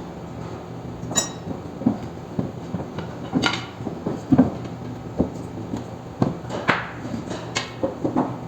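Irregular metallic knocks and clanks of hand tools and metal parts being worked on, with a ringing clink about a second in, over a steady low hum.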